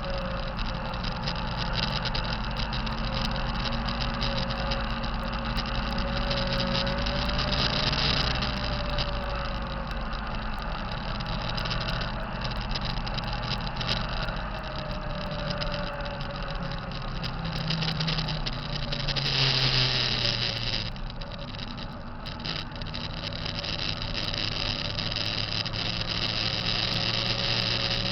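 Kenworth T660 truck's diesel engine running steadily, with a thin tone over it that wavers slightly in pitch: the sound the owner takes for a bad turbocharger. The engine gets louder for a moment about two-thirds of the way through, then drops back.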